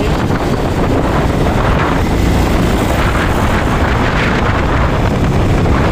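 Benelli Imperiale 400's single-cylinder engine running while the motorcycle rides along, under a steady rush of wind on the microphone.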